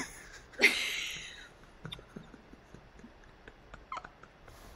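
A short breathy exhale, like a quick laugh of breath, about half a second in, fading within a second; then faint scattered clicks over quiet room tone.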